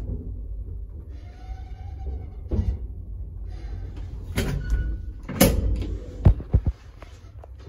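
ZUD lift running, with a steady low rumble. Several clunks and knocks come from about halfway through, the loudest near the end, and then the rumble drops.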